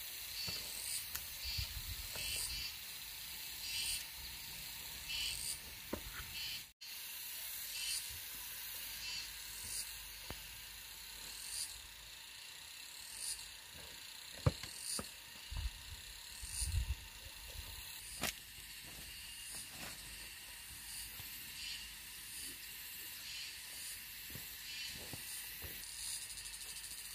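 Insects calling: a short rising high chirp repeats about once a second over a steady high hiss. Now and then comes the dull thud of a hoe blade striking soil, a few of them close together past the middle.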